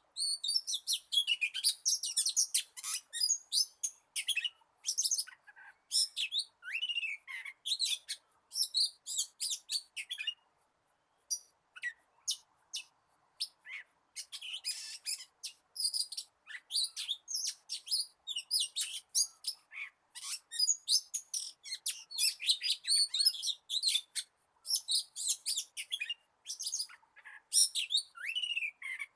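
Oriental magpie-robin song: a rapid, varied stream of sharp chirps, whistles and short trills, broken by brief pauses.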